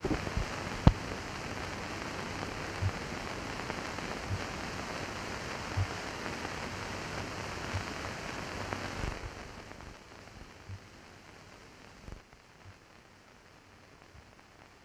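Steady hiss and crackle of an old film soundtrack, broken by soft low pops every second or so and one sharp click about a second in. The hiss drops sharply about nine seconds in and goes on more faintly.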